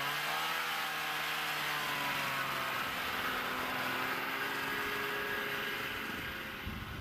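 Snowmobile's two-stroke engine running at a steady speed as the sled drives close past, the engine note fading a little near the end. Wind rumbles on the microphone in the last second.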